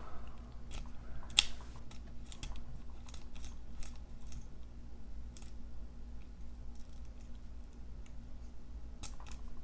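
Small metallic clicks and taps of a key working in a pin-tumbler lock as the core is turned and the pins move, scattered and irregular with a sharper click about a second and a half in and a few more near the end, over a steady low hum.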